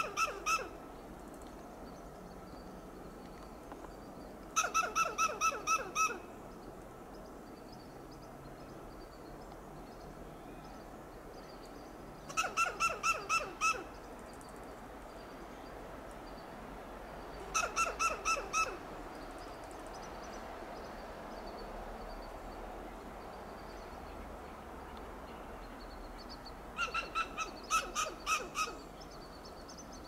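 Western gray squirrel giving alarm calls: bouts of rapid, repeated barking clucks, about five a second, each bout lasting a second or two. Five bouts come several seconds apart.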